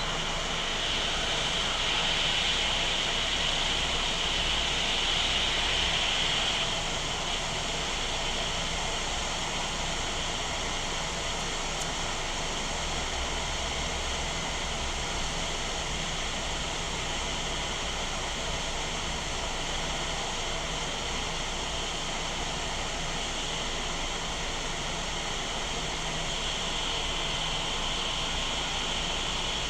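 Hot air rework station blowing a steady hiss of air with its airflow turned up, heating a component on a laptop motherboard to desolder it. The hiss is a little brighter for the first several seconds and again near the end.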